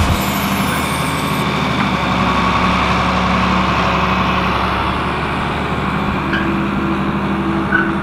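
John Deere tractor engine running steadily as the tractor pulls a loaded flatbed hay trailer past at a slow pace.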